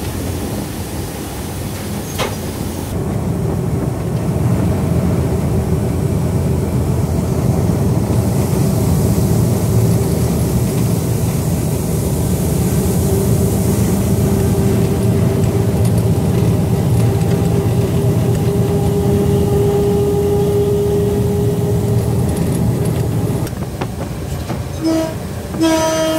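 Diesel locomotive engine working hard as the train pulls away, a dense low rumble that grows louder about three seconds in and holds steady, with a steady whine over it. Near the end the locomotive horn gives two short toots.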